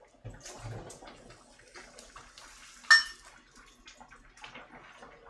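Quiet bubbling of a pot of mackerel and kimchi stew at the boil, with light kitchen clatter. About three seconds in, one sharp ringing clink of a spoon on crockery.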